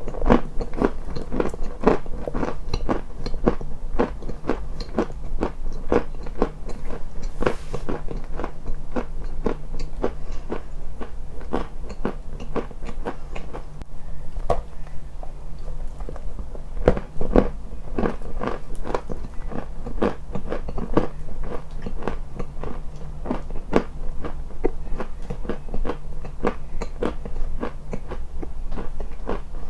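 Close-miked crunching: a person biting and chewing something brittle, a dense run of sharp crackles throughout, over a low steady hum.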